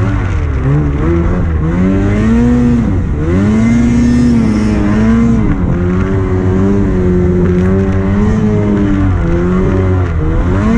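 Snowmobile engine running hard, its pitch rising and falling again and again.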